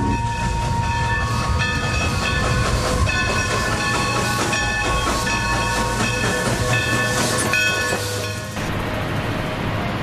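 Steady low rumble with repeated stretches of high squealing tones over it; the squealing stops abruptly about eight and a half seconds in, leaving the rumble.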